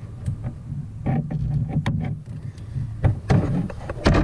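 Plastic clicks and knocks as a push rivet is pried out of the leg lifter of a Wilderness Systems Phase 3 AirPro kayak seat, over a low rustle of handling. The knocks come irregularly, the loudest a little past three seconds in and again near the end.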